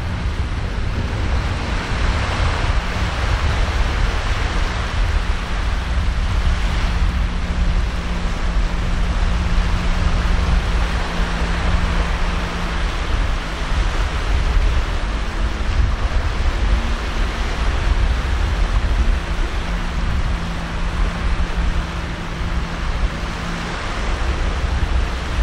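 Waves washing on the shore with wind rumbling on the microphone, under the low steady drone of a distant Sea-Doo jet boat's engine running at speed.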